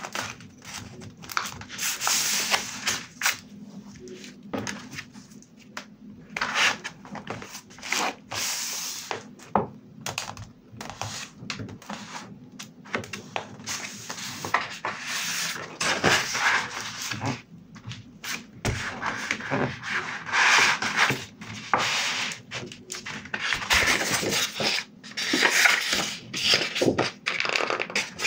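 Close-miked hands handling a paper notebook: fingers rubbing and smoothing the pages, with nail taps, scratches and clicks, and a metal bulldog clip being clipped onto the pages at the start. Near the end a sheet of stiff paper rustles as it is handled.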